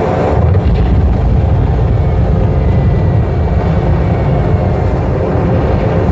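Loud, steady low rumble of droning aircraft engines played over the display's outdoor loudspeakers.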